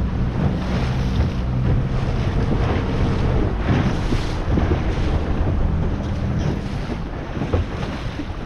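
Wind buffeting the microphone over water rushing and splashing past a boat under way, with a low steady hum of a motor underneath.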